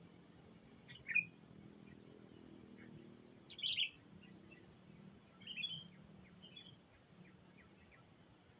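Songbird giving short, sharp chirping calls, loudest about a second in, near four seconds and around five and a half seconds, with fainter chirps between, over a faint steady low hum.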